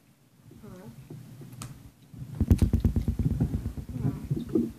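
Girls' voices making wordless sounds, with a fast, evenly pulsing rattle for about two seconds in the middle.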